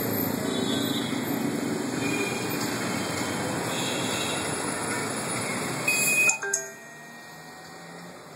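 Steady noise of city road traffic. About six seconds in there is a short, loud crackling noise, and then it turns much quieter.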